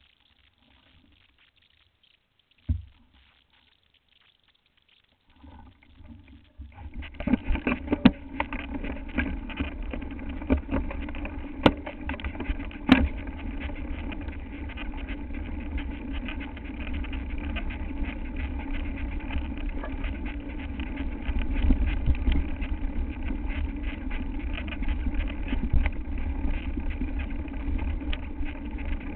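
Mountain bike riding fast down a rough trail, heard through a camera mounted on the bike: a steady rushing and rattling noise begins about six seconds in, with a few sharp knocks from bumps. Before that it is nearly quiet, apart from one knock.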